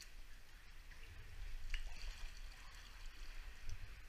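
Water sloshing and trickling around a sea kayak being paddled, with dripping from the paddle blades and a few faint splashes.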